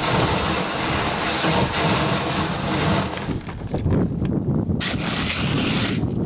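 Thick slush ice hissing and scraping against a plastic Sun Dolphin kayak hull and paddle blade as they push and chop through it. The hiss drops out for over a second about three seconds in and again near the end, with crunching as the paddle breaks the slush.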